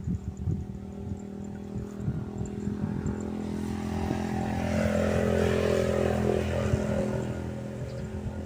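A motor engine running steadily, growing louder about halfway through and then easing off, like a vehicle going past.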